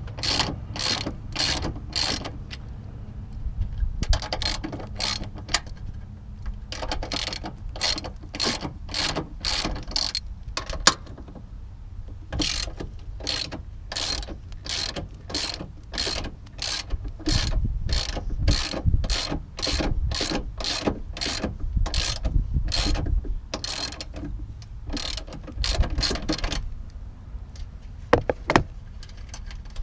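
Hand ratchet with a 13mm socket clicking in short runs, about three clicks a second, with pauses between runs, as the strut-top nuts are backed off.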